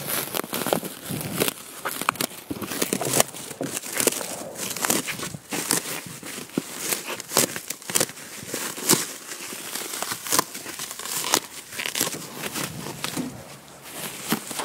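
Plastic stretch wrap being cut open and pulled off by hand, crinkling and tearing in a dense, irregular run of crackles.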